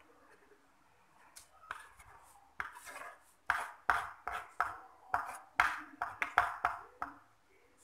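Metal spoon scraping across a wooden cobek (sambal mortar bowl), gathering up the last of the sambal: a quick run of short scrapes, about two to three a second, a few faint ones at first, then louder from about two and a half seconds in until they stop near the end.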